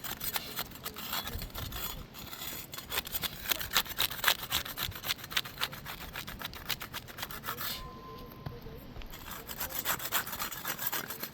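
Putty knife working under asphalt shingle tabs, breaking the seal strips: a rapid run of rasping, crackling scrapes that eases briefly about eight seconds in, then starts again.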